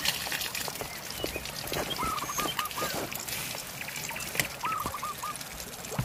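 An animal call, a quick run of four or five notes, repeated twice about three seconds apart, over the steady rush of river water.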